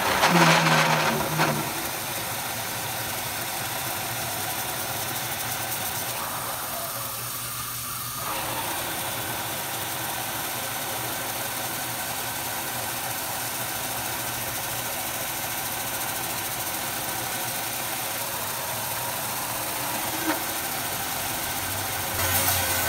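Vertical milling machine in low gear driving a 2-inch cobalt annular cutter through 1.5-inch-thick steel: a steady cutting hum with the hiss of mist coolant. It is louder for the first second and a half and rises again just before the end.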